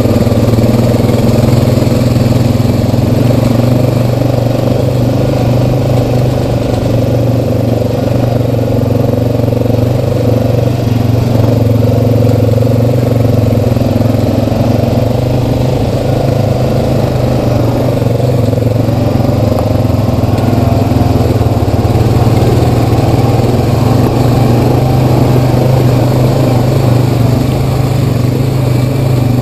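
Honda Rancher 420 ATV engine running steadily at trail-riding speed, its pitch rising and falling only a little as it rolls along a dirt trail.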